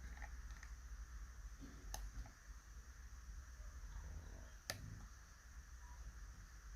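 A few faint, sharp clicks of a pick and tensioner working inside an ASSA Desmo slider cam lock during picking, the clearest about two seconds in and just before five seconds in.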